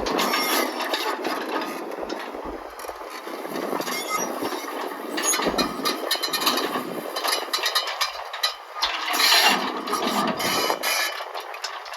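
Komatsu PC160LC-7 hydraulic track excavator running, with repeated clanks and knocks from the machine working over the engine and hydraulic noise.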